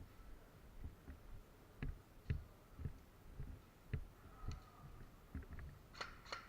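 Faint footsteps, low thumps about two a second, with light clicks of gear rattling, as a player walks carrying the camera.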